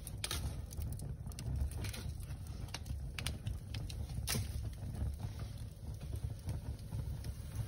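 Wood fire crackling in a fireplace: scattered sharp pops over a steady low rumble, with two louder pops about a third of a second in and about four seconds in.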